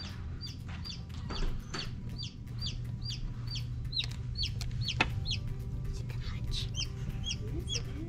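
Newly hatched baby chicks peeping: a fast run of short, high, falling peeps, about two to three a second, with a low steady hum beneath.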